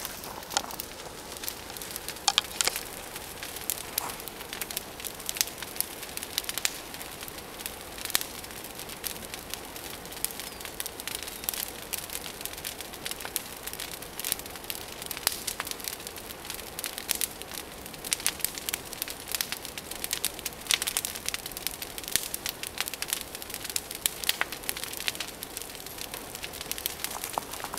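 Large pile of dry tree branches burning, with a steady hiss of flames and many sharp crackles and pops.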